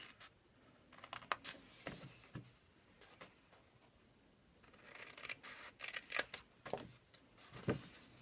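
Craft scissors snipping through cardstock: quiet short cuts, a run of them about a second in and another around five to six seconds in, with one more near the end.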